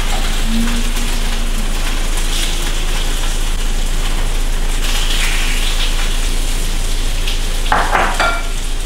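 Cornstarch-coated flank steak slices searing in hot oil in a stainless-steel skillet over high heat: a steady sizzle, with a brief clatter near the end.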